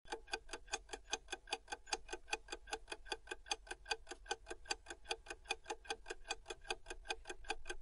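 Clock-ticking sound effect for a quiz countdown timer: a quick, even run of ticks, several a second.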